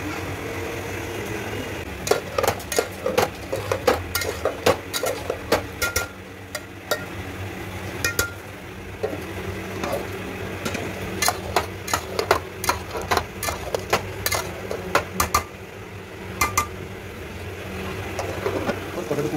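Aluminium cooking pots, lids and plates clanking and clinking as lids are lifted off and set down, metal on metal, in quick irregular strikes, some with a short ring. A steady low hum runs underneath.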